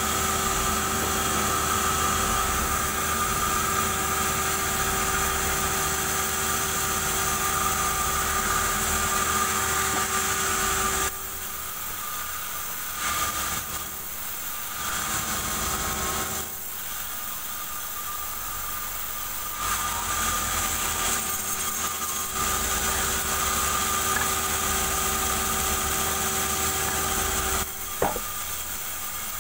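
Vertical band sawmill running and cutting a durian log lengthwise into planks: a steady machine hum and blade whine. The sound drops in level and picks up again a few times as the cuts change, with one sharp click near the end.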